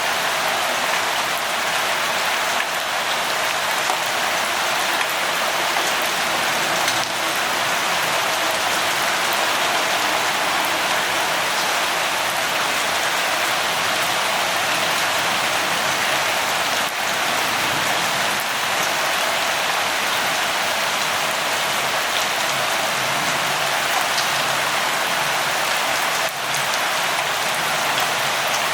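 Steady rain falling, an even hiss of drops with scattered faint ticks of individual drops on a surface.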